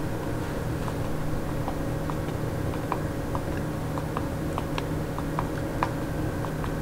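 Footsteps tapping on a hard floor, about two or three steps a second, over a steady low hum.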